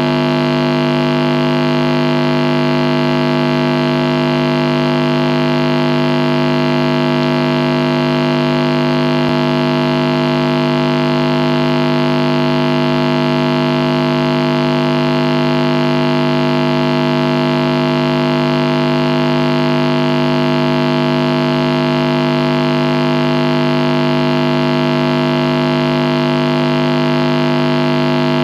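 Marshall guitar amplifier switched on with nothing playing, giving off static: a steady buzzing hum over hiss that does not change.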